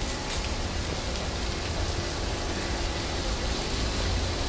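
Automatic train wash plant running: water jets spraying and the rotating roof brush working against the metro car, a steady rain-like hiss over a low, steady hum.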